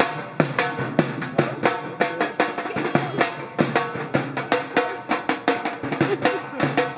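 Music led by fast, steady drumming, several strokes a second, over held melodic notes.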